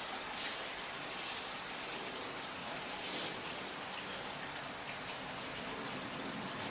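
Steady hiss of room noise with a few brief soft swishes of cotton practice uniforms rustling as two people move through a throw.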